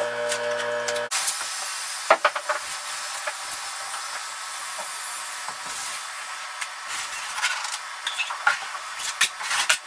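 Steel taping knife scraping and smoothing thinset mortar over Kerdi waterproofing membrane: a steady scratchy hiss with a few sharp clicks of the tool. A short chord of steady tones cuts off about a second in.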